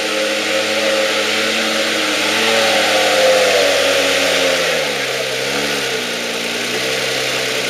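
Modified off-road 4x4's engine pulling at low revs as the truck crawls over a dirt mound on mud tyres. About five seconds in, the engine gives a short rev up and back down, then settles at a lower speed.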